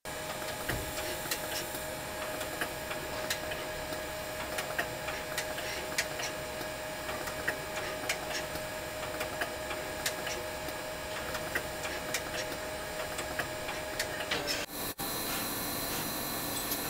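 Solder-paste stencil printer running while it places PCB support pins: a steady machine tone with irregular clicks. After a cut near the end, the sound becomes a steadier, higher whine without the clicks.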